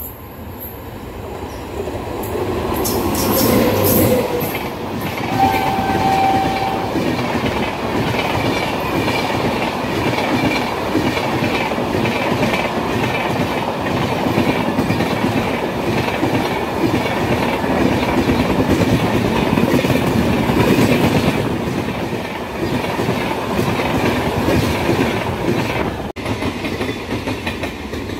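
An Indian Railways express, an electric locomotive with LHB coaches, passing at speed. The rumble and rhythmic clickety-clack of its wheels over the rail joints build over the first few seconds, stay loud while the coaches run by, and ease off near the end.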